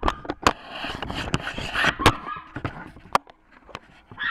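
A string of sharp clicks and taps with some rustling in between: the floodlight fixture's parts being handled.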